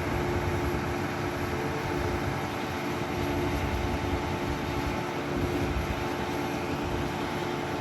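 Steady mechanical drone of running engines or machinery, with a constant hum that holds unchanged throughout.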